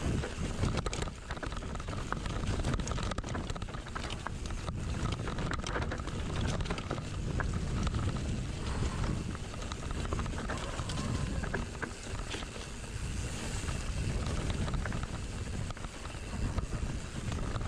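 Wind buffeting the microphone as a mountain bike rides a trail, with scattered clicks and rattles from the bike over rough ground.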